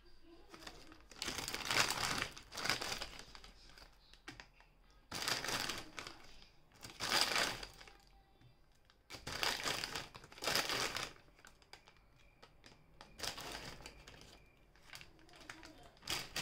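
Plastic sugar packet crinkling in repeated bursts of rustling as it is handled and spoonfuls of soft brown sugar are scooped out of it.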